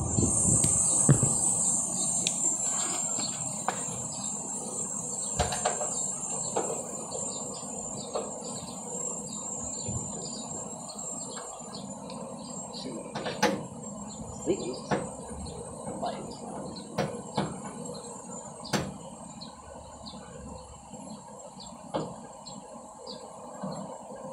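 Steady high-pitched insect chirring with short repeated chirps, broken by scattered sharp knocks and clicks.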